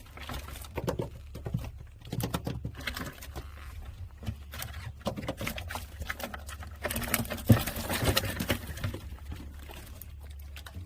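Freshly caught gizzard shad flapping and slapping in a container, a quick irregular patter of taps that grows busier about five seconds in and again near the end, over a steady low engine hum.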